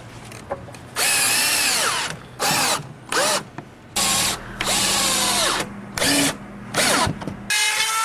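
Cordless drill running in about eight short bursts against a plywood sheet on a wall, its motor pitch rising and falling as each burst starts and stops.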